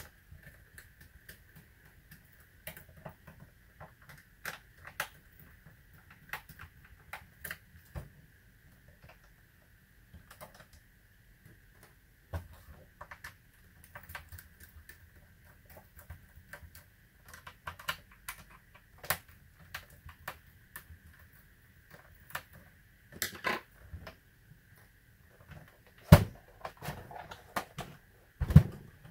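Irregular small clicks and taps of a screwdriver and fingers on the plastic case of a Compaq Contura 410c laptop as its screws are taken out. Two louder knocks near the end as the laptop is turned over, over a faint steady high hum.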